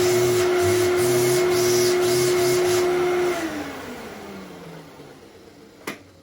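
Fantom Thunder upright vacuum cleaner running with a steady whine, then switched off about three seconds in, the motor winding down in a falling tone; a sharp click near the end. Its brush-roll belt, set in place after twenty years in the box, can be heard where it has been sitting as it goes across the roller.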